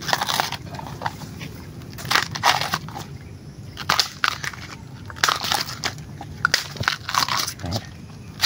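Tough husk sheaths being torn and peeled by hand off large bamboo shoots: a string of irregular crackling rips.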